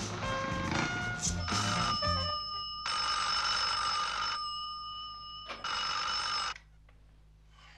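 A bedside telephone's bell ringing in three bursts, the last cut off abruptly as the handset is lifted. The tail of a music score fades out under the first ring.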